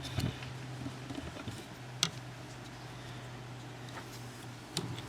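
A few sharp clicks and taps, one about two seconds in and another near the end, as the chain filing guide is handled and its top plate angle is set, over a steady low hum.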